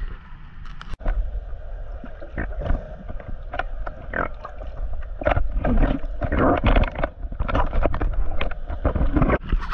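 Water splashing and sloshing close to the microphone in uneven bursts as a diver swims at the surface, over a steady low rumble.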